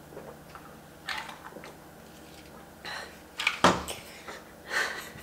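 Drinking from a glass of iced tea: short sips, swallows and ice clinks, then the glass set down on a table with a sharp knock about three and a half seconds in.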